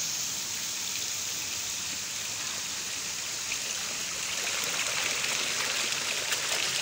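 A dense crowd of koi churning and splashing at the pond surface as they feed: a steady watery hiss, with small sharp splashes coming more often from about halfway through.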